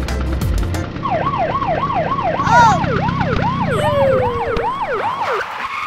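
Police siren in a fast yelp, about three wails a second. It starts about a second in, as the backing music stops, and fades away near the end.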